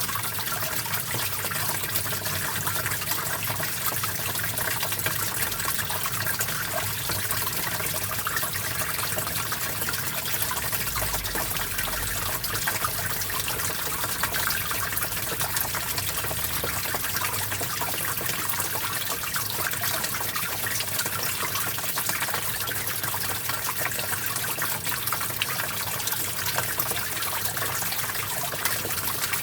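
Small stream of water running over rocks: a steady, even splashing and gurgling with most of its sound high-pitched and hissy.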